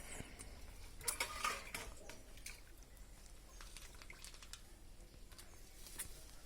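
Faint, irregular small clicks and scratches, with a short cluster about a second in, from a pet parrot moving about.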